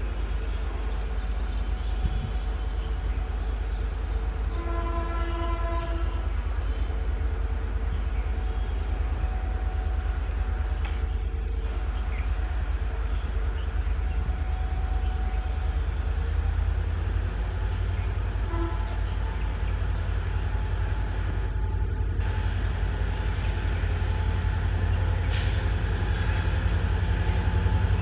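Diesel locomotive running, its low engine rumble growing louder in the second half as it comes closer, with a short horn blast about five seconds in.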